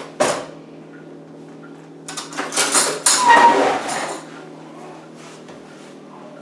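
Glassware and dishes clattering at a kitchen sink. A sharp knock comes at the start, then about two seconds of louder clattering with a brief ringing clink in the middle.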